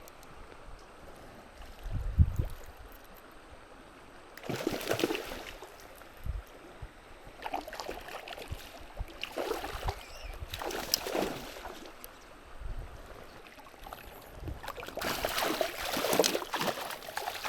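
Spring-fed creek running, with several bursts of splashing water and a few low thumps as a hooked trout is played and brought in.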